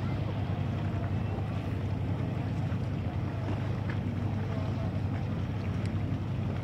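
Steady low rumble of wind on the microphone at the open water's edge, unchanging in level, with a few faint brief sounds over it.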